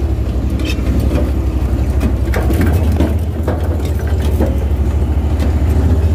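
Vehicle engine running steadily under way, with scattered knocks and rattles.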